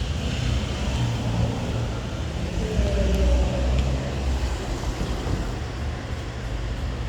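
Steady low rumble under an even background noise, like road traffic, with a faint brief whine about three seconds in.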